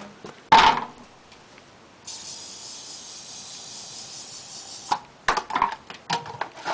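A loud thump about half a second in, then an aerosol can hissing steadily for about three seconds as propellant is sprayed into a spud gun's combustion chamber, cutting off abruptly, followed by a run of sharp clicks and knocks.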